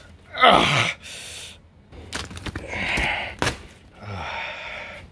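A man's short strained groan falling in pitch, then the scratchy sawing of a knife cutting through packing tape and cardboard, with a few sharp knocks.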